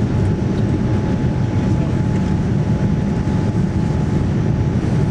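Steady roar of a Boeing 787-9's engines and rushing air, heard inside the passenger cabin in flight, with a thin steady whine above it.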